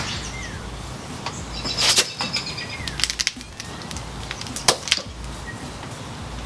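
A new rear shock absorber being handled and fitted onto the motorcycle's rear mount: a scatter of short metal clicks and knocks, thickest about two seconds in, with a couple more near five seconds, over a steady low hiss.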